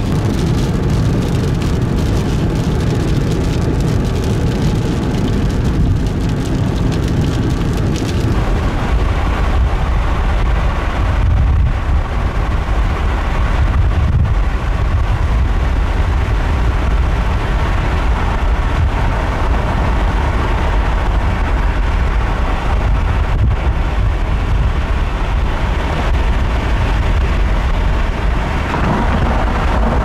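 Car driving through heavy rain: steady road and engine noise with rain on the vehicle.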